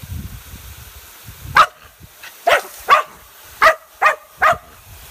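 McNab dog barking: six short, sharp barks in quick succession, starting about a second and a half in, as it herds the water spraying from a garden sprinkler.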